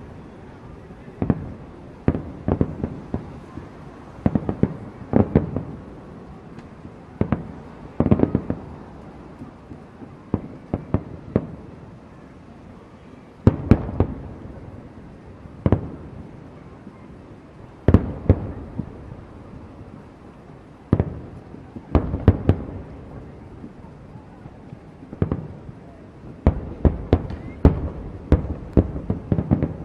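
Aerial fireworks shells bursting: sharp booms come every second or two, some alone and some in quick clusters, each trailing off in a rumbling echo.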